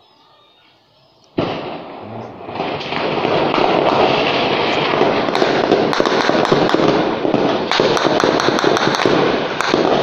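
A sudden loud explosion about a second and a half in, followed by heavy, sustained gunfire: a dense, unbroken crackle of many rapid shots.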